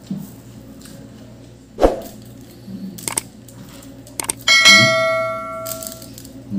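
Subscribe-button sound effect: a couple of quick clicks followed by a bright bell ding that rings and fades over about a second and a half. Earlier, a single sharp knock about two seconds in, among soft clicks of hands picking at food.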